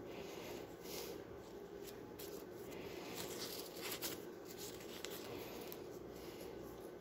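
Soft rustling and crinkling as hands handle a leaf and wrap waxed floral tape around a wire flower stem, with one louder rustle about four seconds in, over a steady low hum.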